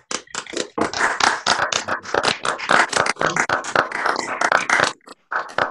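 Applause: hands clapping rapidly and irregularly, thinning out to a few last claps about five seconds in.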